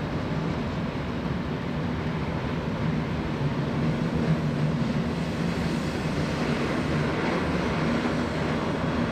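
Diesel locomotives running with a steady low rumble and hum, typical of the standing BNSF stack train's engines idling while it holds for a passing train.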